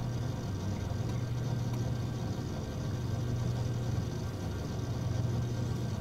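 Desktop PC starting up Windows 10 from a spinning-disk hard drive, with the case off: a steady, loud mechanical hum and whir from the drive and the cooling fans while the drive reads during boot.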